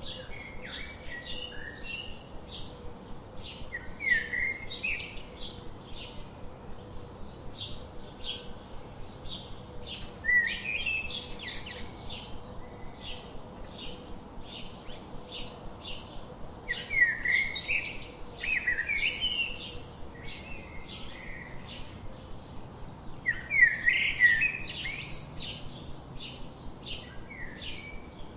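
Songbirds chirping: a steady run of short, high chips about twice a second, with louder twittering phrases breaking in every few seconds.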